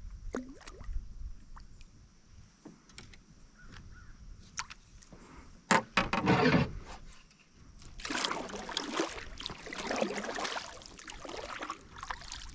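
Water splashing and sloshing beside a canoe, with scattered small knocks and clicks; the splashing is loudest in a short burst about six seconds in and a longer stretch near the end.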